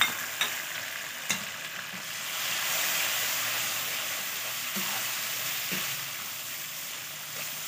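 Chopped tomatoes sizzling in hot oil with browned onions and ginger-garlic paste in a metal karahi, stirred with a metal ladle that clicks against the pan a few times in the first second and a half. The sizzle swells a couple of seconds in as the mixture is stirred, then eases.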